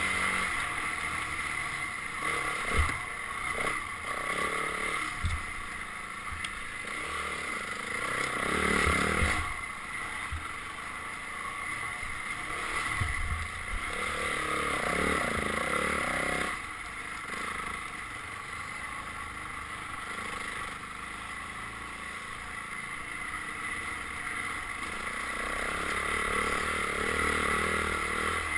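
Dirt bike engine running as it is ridden over a trail, the throttle rising and falling, with louder surges about eight seconds in and again around fourteen to sixteen seconds.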